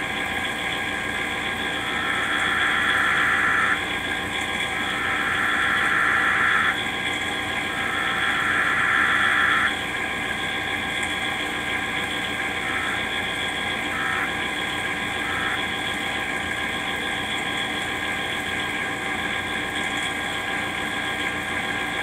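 Emergency Alert System Required Weekly Test data tones played through a TV speaker: three harsh, screechy header bursts of about two seconds each, then a few seconds later three short end-of-message blips. A steady hum runs underneath.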